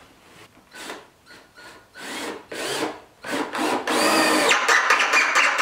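Cordless drill-driver driving a screw through a steel barn-door hanger strap into rough-sawn wood. After a few light handling knocks, the drill runs from about three seconds in, its motor whine rising in pitch.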